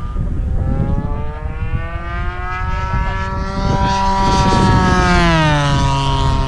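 Radio-controlled model airplane's engine and propeller droning as the plane flies by. It grows louder, then drops in pitch about five seconds in as it passes. Wind rumbles on the microphone throughout.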